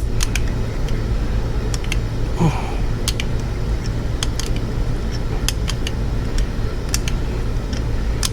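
Scattered light clicks of hand tools working a fastener as it is tightened on the motorcycle, over a steady low hum.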